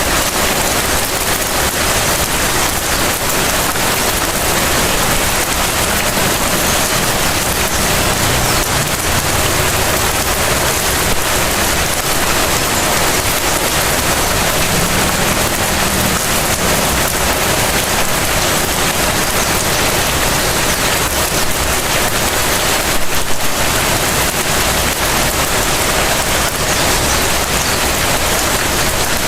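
Light rain falling steadily on the ground and surfaces, an even hiss of drops, with one brief louder moment about three-quarters of the way through.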